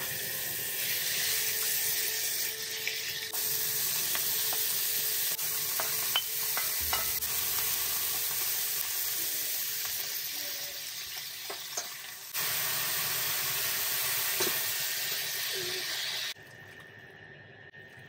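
Sliced pork with lotus root, onion and carrot sizzling in hot oil in a frying pan, with scattered clicks and knocks of chopsticks and a spatula stirring against the pan. The sizzling falls away about two seconds before the end.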